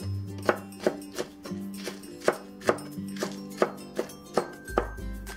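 Vegetable cleaver slicing green onions on a wooden cutting board: a sharp knock of the blade on the wood about two to three times a second, over background music.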